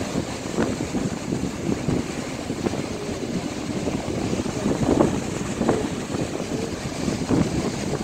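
Sea surf breaking and washing up the beach, with wind buffeting the microphone. A few short knocks stand out, the loudest about five seconds in.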